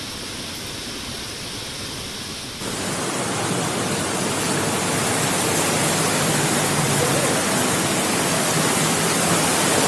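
Fast-flowing floodwater rushing past, a steady loud wash of noise that gets louder about two and a half seconds in.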